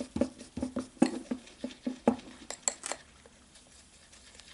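Small wire whisk beating a thick sour cream mixture in a small glass bowl, clicking against the glass at about four strokes a second. The whisking stops about three seconds in.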